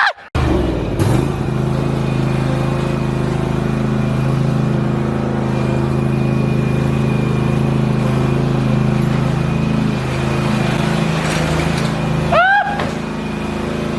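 A vehicle engine running at a steady speed, a constant low drone with no revving.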